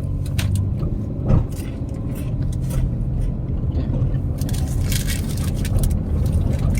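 Someone chewing a chocolate bar: a string of short crackles and clicks, thickest about two-thirds of the way in, with one sharper snap about a second and a half in. Under it runs a steady low rumble.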